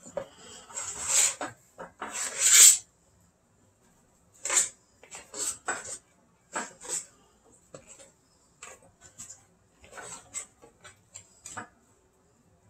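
Hands mixing and squeezing wet, sticky bread dough in a glass bowl: irregular squelching and scraping strokes with occasional knocks against the bowl, loudest a couple of seconds in.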